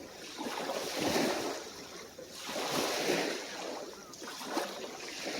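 Small, calm waves breaking and washing onto the shore, the wash swelling and fading about every two seconds.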